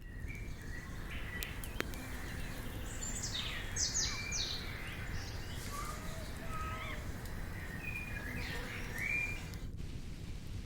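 Several wild birds calling and singing over a steady low background noise, with a quick run of downward-sweeping notes about three to four seconds in.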